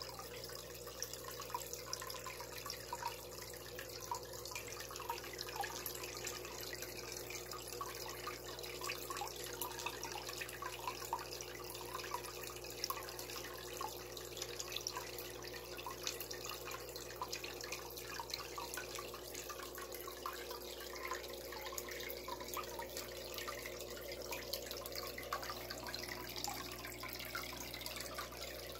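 Water splashing and trickling into a goldfish tub pond, with many small irregular drips, over a steady low hum.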